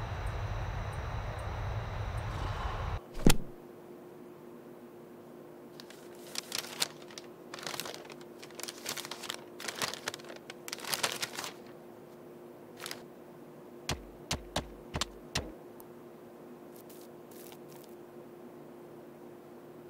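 Stiff brown butcher paper crinkling and crackling for several seconds as it is opened out from around a raw steak, followed by a few soft low thumps. Before that, a steady noisy rumble cuts off with a single sharp click, the loudest sound.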